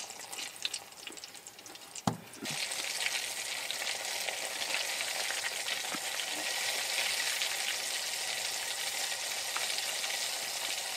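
Hot oil sizzling steadily in a frying pan, a high even hiss that starts abruptly about two seconds in, right after a single dull knock.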